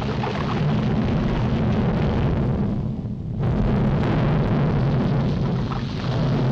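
Cartoon sound effect of an erupting volcano: a continuous deep rumbling, with the higher part briefly dropping away about three seconds in.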